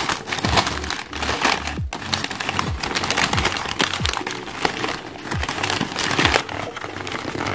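Newspaper packing paper crumpling and crackling as it is pulled open and unwrapped by hand, in a continuous run of sharp crinkles.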